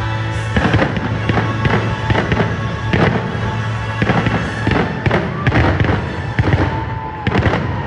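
Fireworks going off in quick succession, sharp bangs and crackles about twice a second, with music playing underneath.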